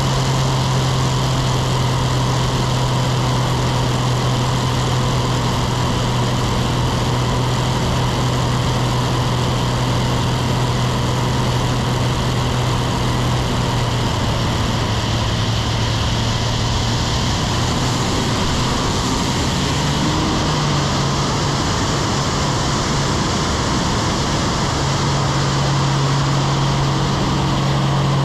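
Aerobatic biplane's piston engine and propeller running at a steady pitch, heard from the wing with loud wind rush. About two-thirds of the way through the engine note weakens and wavers, then comes back strong near the end.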